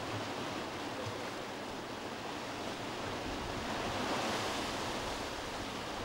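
Sea surf washing against rocks, a steady rush of water that swells slightly about four seconds in.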